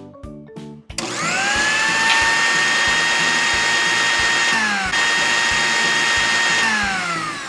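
Toy blender's small electric motor whirring. It spins up with a rising whine about a second in and runs steadily, winds down briefly and starts again, then winds down near the end.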